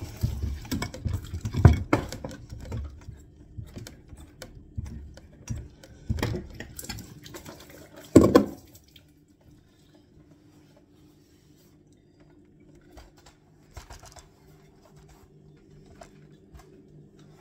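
Knocks and clatters of hand work on a kitchen sink's fittings as it is freed for removal, with a sharp loud knock about eight seconds in. After that the clatter stops and only a faint low hum remains.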